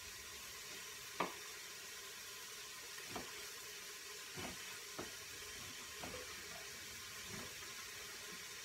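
Kitchen knife cutting through raw beef chuck roast and knocking on a cutting board, about six short knocks at irregular intervals, the loudest about a second in, over a faint steady hiss.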